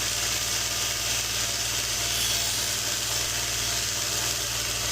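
Electric polishing machine running with a steady motor hum under a constant abrasive hiss as a pocket knife's steel blade is held against the turning wheel for a satin polish.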